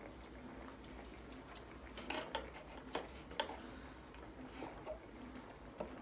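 Light, irregular clicks and taps of small hard objects on a wooden tabletop soccer board, about half a dozen, most of them bunched in the middle.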